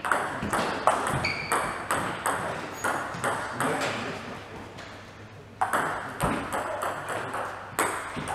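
Table tennis rallies: a celluloid-type plastic ball clicking back and forth off bats and a Cornilleau 740 table at a quick, even pace, about three hits a second. The hits stop for about a second just past the middle, then a second rally starts.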